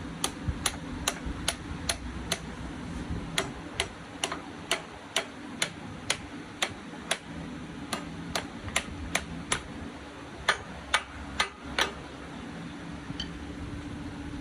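Light hammer taps on metal, roughly two a second, stopping about twelve seconds in, over a steady machine hum.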